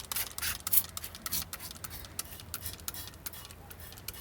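A small plastic toy water pistol fired again and again: a quick, irregular run of short clicks and spurts from the trigger and the water jet.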